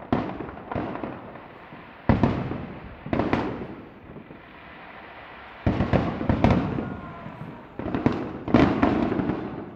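Aerial firework shells bursting: a string of sharp bangs, each trailing off in a rolling echo, coming in clusters with a lull of about a second and a half near the middle.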